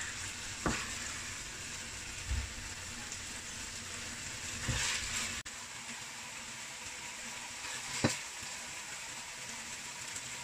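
Stir-fried chicken and mushrooms still sizzling in the hot wok, a steady hiss, with a few clicks and knocks as the red spatula scoops the food onto the plate, the sharpest near the end.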